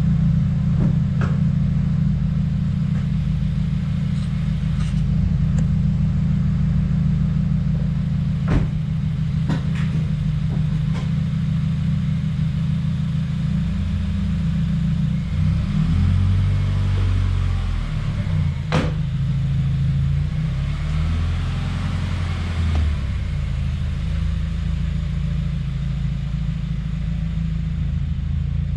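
2017 Subaru WRX's turbocharged flat-four engine running with a low rumble that turns uneven and lumpy about halfway through, with a few sharp clicks. It is the rough, choking idle that the owner puts down to a boost or vacuum leak after fitting an aftermarket charge pipe and top-mount intercooler.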